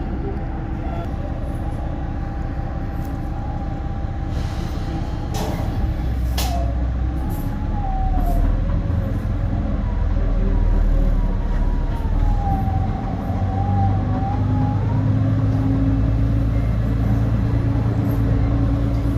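KiHa 350 diesel railcar's engine running as it rolls slowly toward a station, with a wavering high squeal rising and falling over it and a couple of sharp clicks about six seconds in.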